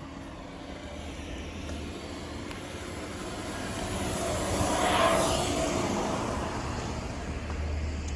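A road vehicle driving past, its noise swelling to a peak about five seconds in and then fading away.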